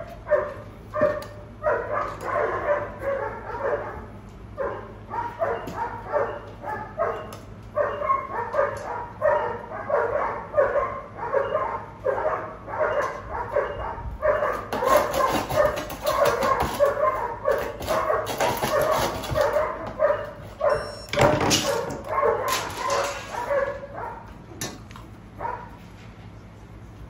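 A puppy licking and nosing a stainless steel food bowl as it finishes its kibble: a quick run of short ringing metallic clinks, about three to four a second. From about halfway through, the bowl also scrapes across the plywood floor, with one sharp knock a little past two-thirds in.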